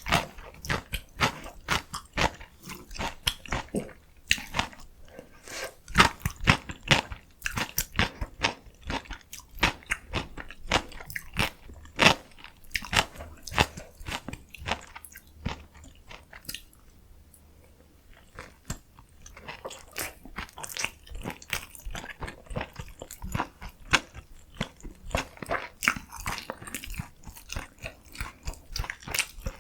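Close-miked eating of spicy noodles with young radish kimchi and kimchi dumplings: continual chewing with many sharp, irregular crunches, easing off for a few seconds a little past halfway before picking up again.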